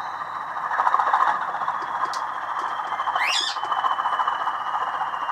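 Bachmann Class 20 model locomotive's sound decoder playing its diesel engine running sound through a small twin speaker while the model runs on a rolling road: a steady, midrange-heavy sound with a faint high whine slowly falling in pitch and a brief squeal about three seconds in.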